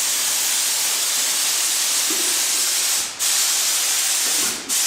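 Compressed-air paint spray gun hissing steadily as it sprays acrylic paint, cut off briefly twice near the end as the trigger is let go.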